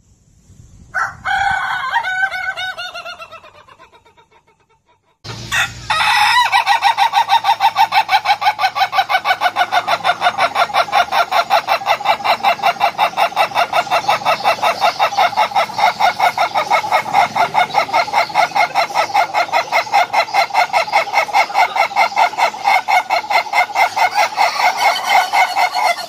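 A rooster crows about a second in, the call falling in pitch and fading out. From about five seconds in comes one very long crow that pulses rapidly, several pulses a second, held at a steady pitch for some twenty seconds.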